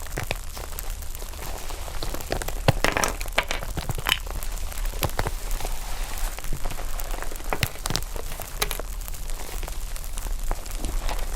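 Foam slime being squeezed and pressed by hand, crackling with a dense, irregular run of small pops and clicks as air pockets in the slime burst.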